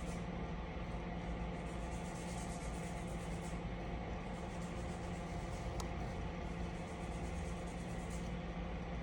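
Steady low machine hum with an even hiss, like a fan or small motor running, with one faint click about six seconds in.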